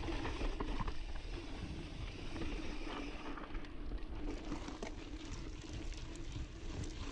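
Steady rolling noise from an Intense Sniper mountain bike's knobbly tyres on a dry, dusty, loose dirt trail. Wind on the microphone and small scattered rattles from the bike ride along with it.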